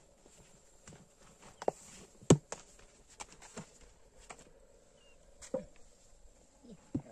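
Irregular knocks and clicks, about seven of them, the loudest a little over two seconds in.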